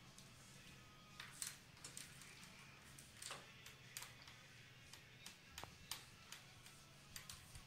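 Faint, irregular clicks and ticks of a dog eating from a stainless steel bowl in a raised feeder.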